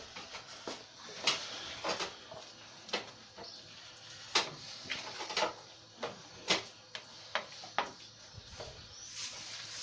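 Irregular knocks and clinks of a utensil against a stew pot, about one every second, over a steady hiss of vegetables frying in oil for a sofrito.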